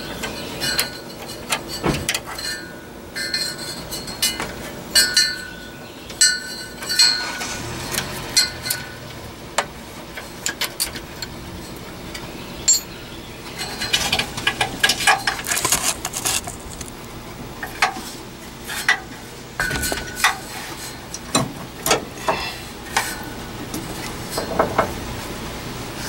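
Repeated small metallic clinks and ticks of steel parking brake cable ends and their clips being handled and knocked together, some with a brief ring, with a denser run of clattering a little past halfway.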